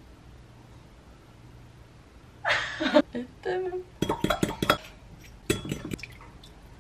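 Dishes and cutlery clinking in a kitchen. A faint low hum comes first, then a short rush of noise about two and a half seconds in, then two clusters of sharp clinks.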